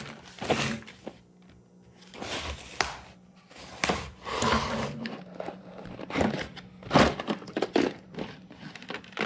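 Cardboard mailing box being slit open with a knife and its lid lifted: irregular scraping, rustling and sharp knocks of cardboard on a workbench, over a faint steady hum.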